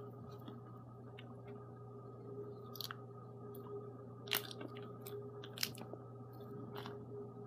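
Quiet room tone: a steady low electrical-sounding hum, with a few faint, short clicks scattered through it.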